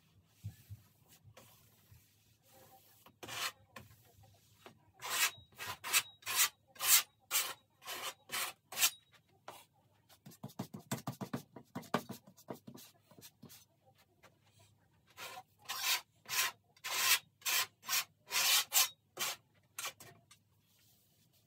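Painting tools scraping and rubbing across a stretched canvas: two runs of quick back-and-forth strokes at two to three a second, with duller rubbing between them.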